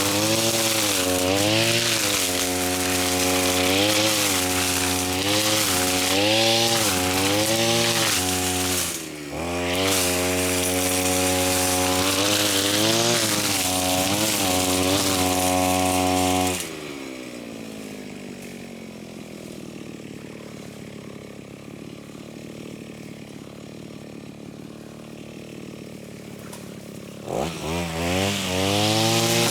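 Small lawn-mower engine running at high revs while cutting thick grass, its pitch wavering up and down under the load, with a brief dip a little after the first third. Past the middle the revs fall away to a low idle, and near the end the engine revs back up to full speed.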